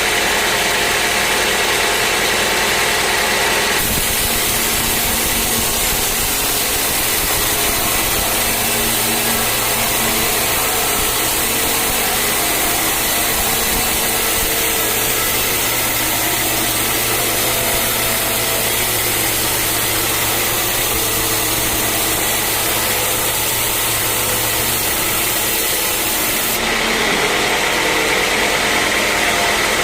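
Sawmill running steadily under power. About four seconds in, a harsher, hissing cutting sound sets in as the saw runs through a teak log, and it eases off a few seconds before the end.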